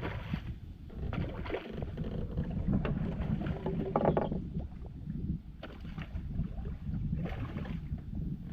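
Wind and water around a small fishing boat, a steady low rumble, with irregular short scuffs and splashes on top; the loudest comes about four seconds in.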